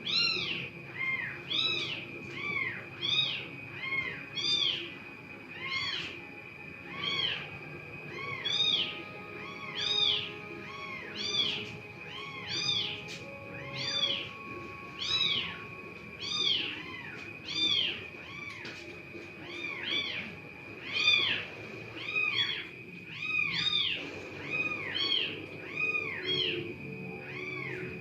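An animal calling over and over, roughly one high call a second, each call rising and falling in pitch. A steady high tone runs underneath.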